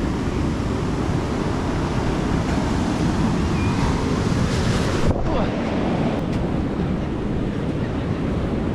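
Ocean surf breaking and washing up the beach, with wind buffeting the microphone as a heavy low rumble. A wave's hiss swells up about three seconds in and falls away around five seconds.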